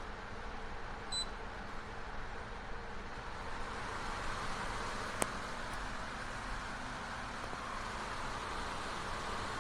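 GE Profile ClearView inverter window air conditioner running, its fan giving a steady rush of airflow. A short electronic beep sounds about a second in, and a single sharp click comes a little after five seconds.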